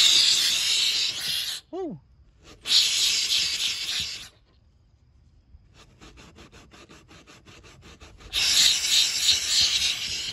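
Handheld steam cleaner jetting steam from its hose nozzle into car carpet in three hissing bursts of one to two seconds each. In the pause before the last burst there is a faint rapid ticking, about eight a second.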